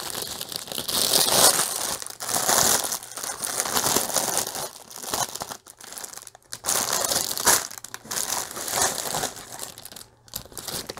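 Thin clear plastic packaging bag crinkling as it is handled and the small bags of diamond painting drills are pulled out of it, in uneven bursts with short pauses.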